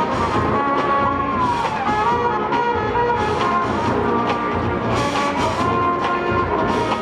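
Marching band brass playing a Motown tune over a steady drum beat.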